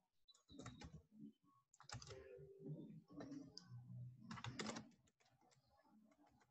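Faint computer keyboard typing, a run of quick keystrokes that dies away about five seconds in.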